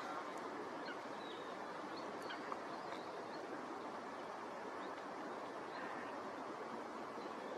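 Steady outdoor background hiss with faint, high chirps of small birds scattered through it.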